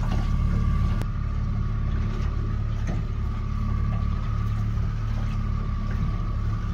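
Boat engine running steadily: a constant low hum with a thin, steady whine above it.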